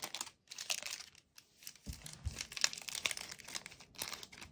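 Foil wrapper of a Topps Match Attax trading-card pack crinkling and crackling in the hands as it is worked and torn open, in irregular small crackles, with a couple of soft handling bumps about two seconds in.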